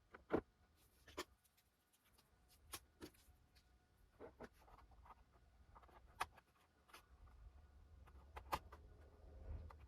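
Sparse small clicks and taps from handling a plastic car door trim panel while anti-squeak tape is stuck onto its tabs. A faint low rumble builds near the end.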